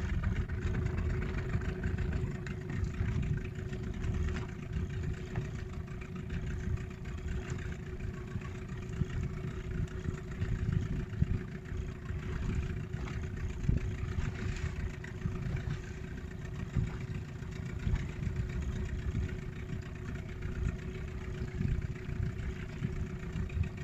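Small fishing boat's engine running steadily at low speed, a constant hum over a low rumble.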